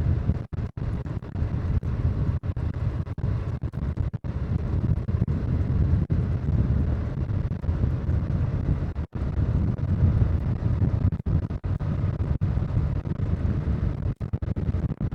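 Harley-Davidson Low Rider S V-twin engine running steadily while riding, with wind buffeting the microphone. The sound cuts out for an instant several times.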